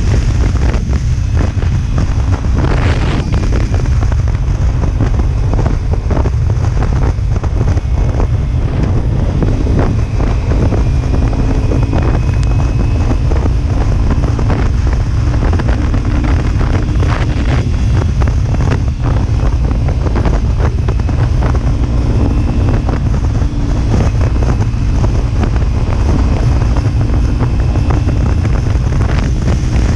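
Steady, loud wind rumble on the microphone at highway speed on a Kawasaki Ninja 300, with the bike's parallel-twin engine running evenly underneath.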